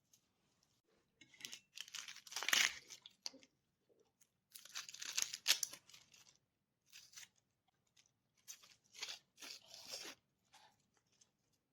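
Crisp crunching and crinkling handling noise in two longer bursts, then several short ones.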